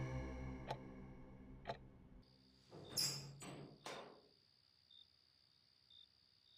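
Faint ticking about once a second, like a small table clock, first under a fading synth drone. A few brief rustling swishes come about three seconds in, then the soft once-a-second ticks go on over a thin, steady high tone.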